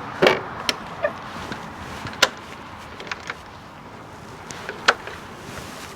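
Scattered sharp clicks and knocks of metal tools and parts being handled and set in place during motorcycle wheel work. There are a few light ones in the first second, and the sharpest strikes come about two seconds in and again about five seconds in.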